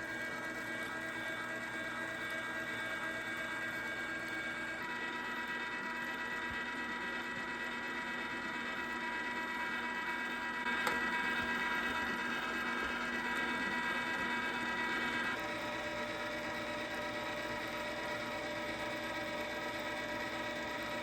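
LEM Big Bite #8 half-horsepower electric meat grinder running steadily, grinding venison through the fine plate. Its tone shifts about five seconds in and again about fifteen seconds in.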